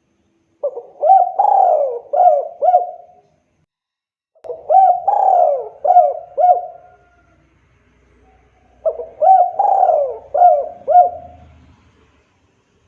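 Spotted dove (tekukur) singing its cooing song: three phrases of about five coos each, with a short pause between phrases.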